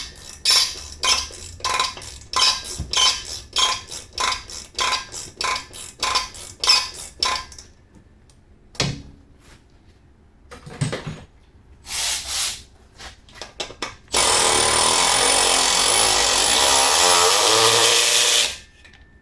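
Sharp metallic clicks at about two to three a second for several seconds, then a few scattered knocks. Then a power tool runs steadily for about four seconds and cuts off suddenly, as the heated exhaust spring bolts are worked loose.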